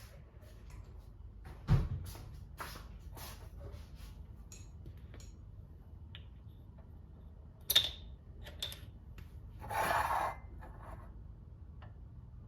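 Scattered light clicks and taps of small objects being handled, with a short rustling burst about ten seconds in.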